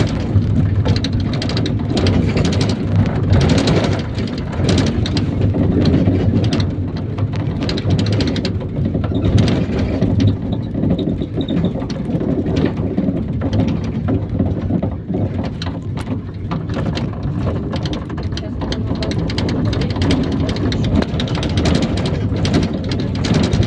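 IVECO Daily bus heard from inside while driving: the diesel engine runs steadily under a rumble of road noise, with frequent rattles and knocks from the body and fittings.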